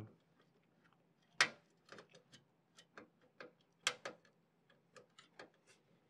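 Screws being driven by hand to mount an all-in-one cooler's radiator in a steel PC case: an irregular run of light clicks and ticks, with two sharper clicks about a second and a half and four seconds in.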